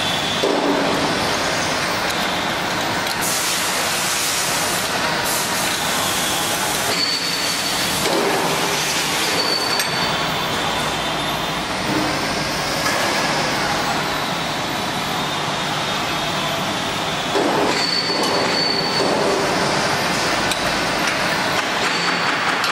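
LZ-1500L open dual-shaft mixer running under test, its anchor agitator and high-speed dispersers driven by electric motors: a loud, steady mechanical noise. A thin high whistle comes and goes several times.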